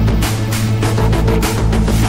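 Music with a fast, steady drumbeat over sustained bass notes.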